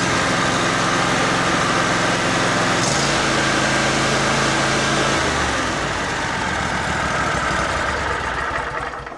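V-twin small engine running steadily, its note shifting about three seconds in and again about five seconds in, then fading near the end.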